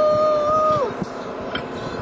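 A person's voice holding one note that slides up into it and drops away at the end, over a steady background hiss.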